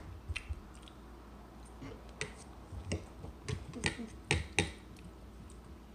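Eating sounds: a spoon and a fork clicking and scraping against a plastic bowl and a plate, in scattered short sharp clicks that come most often in the second half.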